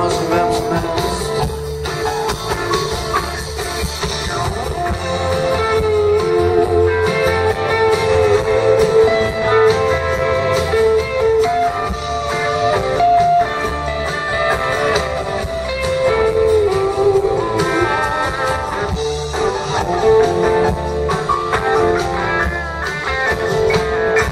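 Live rock band playing an instrumental passage of a blues-tinged song, with guitar carrying a bending melody over bass and steady drums.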